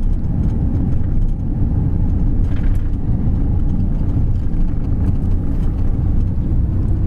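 Delivery van driving on a country road, heard from inside the cab: a steady low drone of engine and tyre noise.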